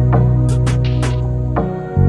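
Background music with sustained bass notes and chords, over which a Royal Kludge mechanical keyboard's keys are pressed close up, giving several sharp, irregularly spaced clicks.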